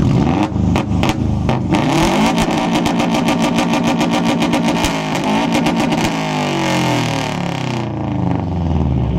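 Subaru Legacy's flat-four boxer engine being revved hard through its exhaust for a loudness contest. A few sharp pops come in the first two seconds, then the revs climb and are held high for about three seconds before falling away. The run reads about 118 dB on the meter.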